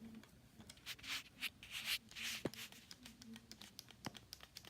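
Faint handling noises: hands rubbing and scraping on a small object, with light clicks scattered throughout.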